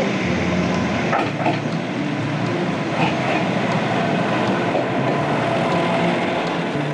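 A Moka Railway diesel railcar pulls into the platform and rolls past close by, its engine running and its wheels clattering on the rails.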